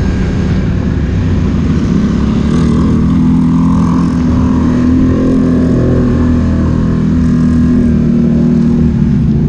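Polaris Sportsman 1000 ATV's twin-cylinder engine running under way at a steady cruising pitch, heard from the rider's own helmet camera over a low rumble of the ride.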